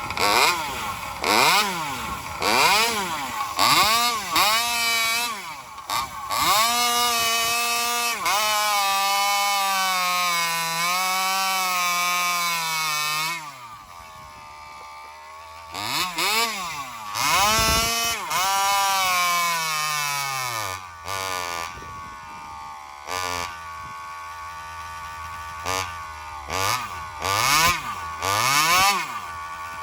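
Alcohol-fuelled Joncutter 5800 chainsaw with a tuned expansion pipe, running and being revved in quick repeated blips, then held at high revs that waver for several seconds before dropping off. Later it settles to a low idle between further blips of the throttle.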